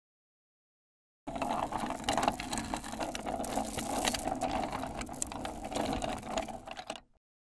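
Metal hand meat grinder running, with a mass of small magnetic balls rattling and clicking as they feed through and spill out. It starts about a second in and stops abruptly near the end.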